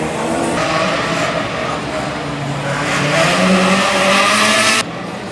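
Rally car engine running hard under acceleration, its pitch climbing and growing louder, then cut off abruptly near the end.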